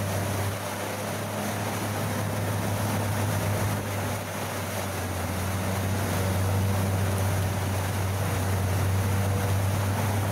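All-terrain vehicle's engine running steadily with a low drone, growing louder about halfway through.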